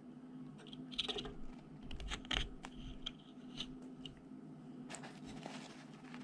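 A pointed metal tool scraping and picking old black potting goop out of a hollow Bakelite capacitor block: a run of faint, irregular scratches and small clicks.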